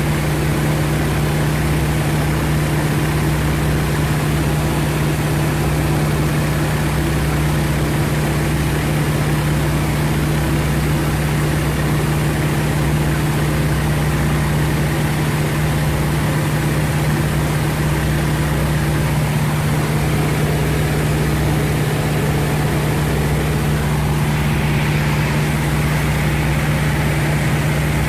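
North American T-28 Trojan's radial engine and propeller running at a steady pitch, one unbroken drone.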